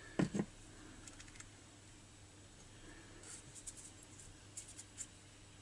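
Small metal carburettor parts being handled and set down on a workbench: a couple of short knocks just after the start, then faint scattered clicks and taps.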